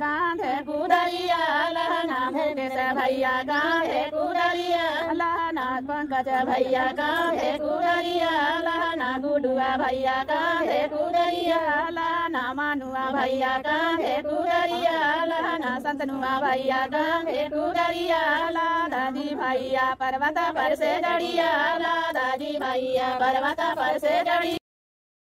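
Women's voices singing an unaccompanied traditional wedding folk song, one wavering melody carried on without pause, cut off abruptly near the end.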